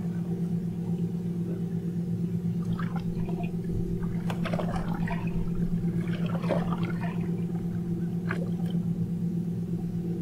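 Wake from a large passing boat reaching an anchored fishing boat: water slaps and splashes against the hull in irregular bursts, with a few knocks, over a steady low drone.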